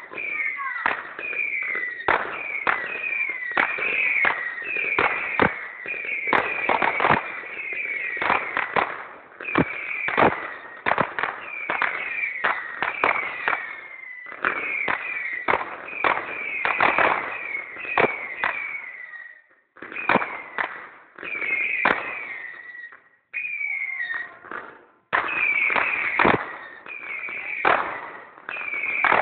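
Ground-launched fireworks firing in quick succession: short whistles falling in pitch, about one a second, mixed with sharp bangs and crackling, with two brief pauses about two-thirds of the way through.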